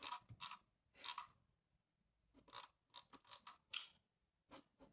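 Faint, scattered short crackles and clicks, coming in small clusters separated by near silence.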